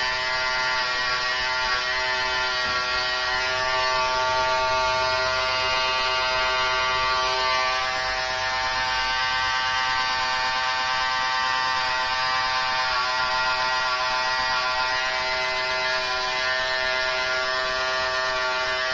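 Corded electric hair clipper buzzing steadily at one unchanging pitch while it trims line designs into short hair.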